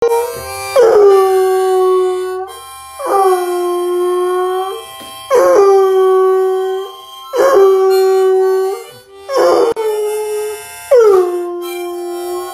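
Bloodhound howling repeatedly: about six long howls, each sliding down from a higher start onto a held note, with short breaks between them.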